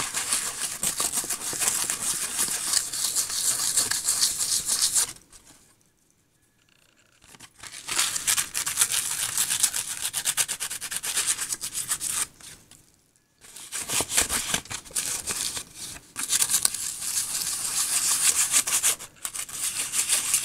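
Fingers rubbing dried salt crystals off the surface of sprayed watercolour paper, a gritty scratching that comes in three long spells, with short pauses about five seconds in and about thirteen seconds in. This is the salt being cleared from the finished salt-technique background.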